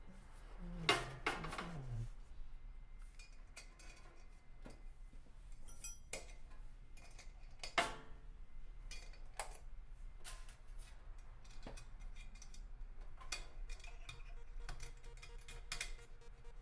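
Small metal hardware (bolts, nuts and clips) and parts being handled during kit assembly: irregular clicks and clinks, with two louder knocks about a second in and about halfway through.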